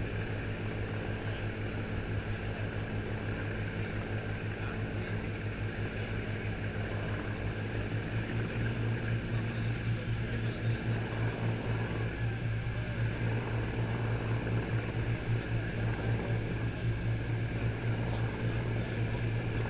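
Speedboat engine running steadily at speed, a low drone over a steady rushing noise; from about halfway through it grows a little louder and swells and dips unevenly.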